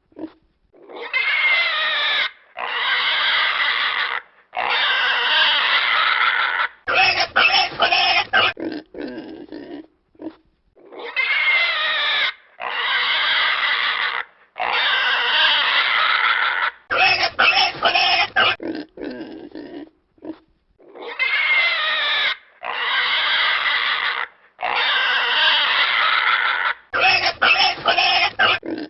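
Pig squealing in long, drawn-out cries, three in a row, then a quick run of short grunts. The same sequence repeats about every ten seconds, three times over.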